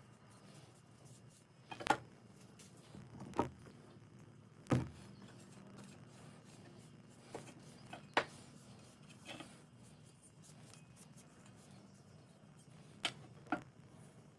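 Scattered light knocks and clicks from handling a steel meat cleaver with a new hardwood handle as it is wiped down with a cloth, ending in two knocks as it is laid on the wooden workbench. A low steady hum runs underneath.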